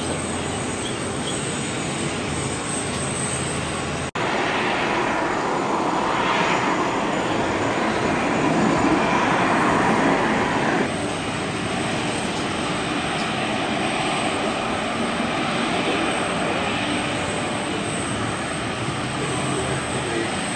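Jet aircraft noise in three edited segments. First a Boeing 777 freighter rolls down the runway just after landing. After an abrupt cut about four seconds in comes a louder pass of a Lockheed Martin F-22 Raptor fighter overhead, its pitch sweeping up and down. After another cut at about eleven seconds, a steadier, slightly quieter engine noise from an Airbus A380 taxiing.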